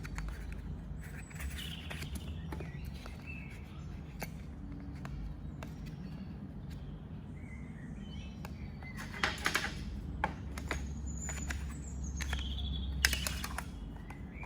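Birds chirping in the background over a steady low hum, with a few sharp clicks and taps of small hard objects being handled, the loudest about two thirds of the way in and near the end.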